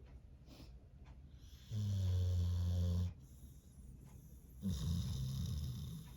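A dog snoring in its sleep: two snores, a steady low drone about two seconds in lasting just over a second, then a rougher, rattling snore near the end.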